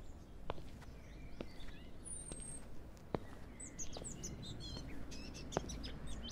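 Outdoor nature ambience: small birds chirping and whistling, with a quick flurry of chirps about four seconds in, over a steady low rumble and a few sharp clicks.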